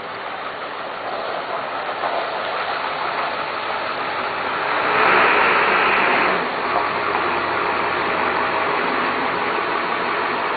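Pickup truck engine and tyre noise over a steady hiss, swelling to its loudest about five seconds in as the truck drives past, then easing back.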